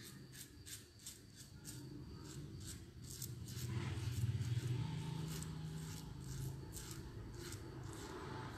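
Shavette razor with a Japanese-steel Euromax blade scraping through lathered stubble in short crackling strokes, about three a second, with a low hum underneath.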